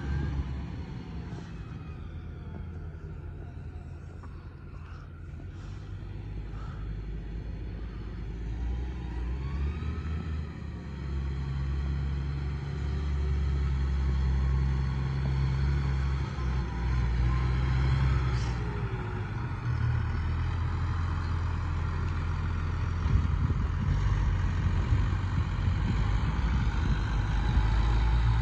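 Deutz-Fahr Agrotron 6180 tractor's six-cylinder diesel engine running as the tractor drives about. It grows fainter in the first few seconds, then steadily louder as it comes back close, and is loudest near the end.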